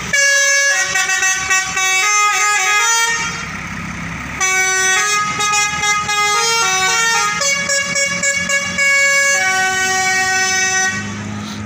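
Tour bus's 'telolet basuri' multi-tone horn playing a tune of stepped notes, in two runs: one of about three seconds, then after a short pause a longer one of about six and a half seconds.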